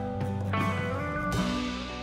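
Background music: a guitar-led instrumental track with plucked guitar notes over a steady bass.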